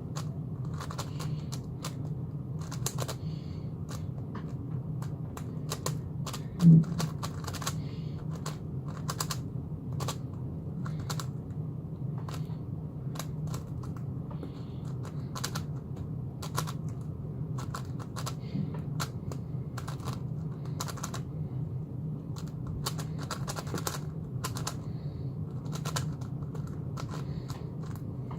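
Rapid, irregular plastic clicking of an X-Man Galaxy V2 M magnetic Megaminx being turned fast during a speedsolve, over a steady low hum. One louder knock comes about seven seconds in.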